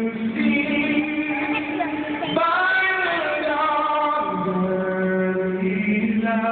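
Solo male voice singing the US national anthem over an arena's public-address system, in long held notes with a rise in pitch a little over two seconds in.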